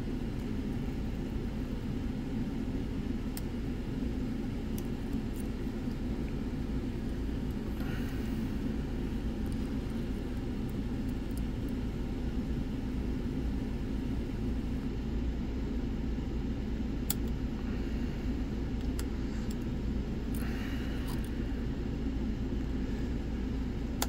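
A steady low rumble of background noise, with a few faint, scattered clicks from a lock pick working the pins inside an ABS Avocet euro cylinder.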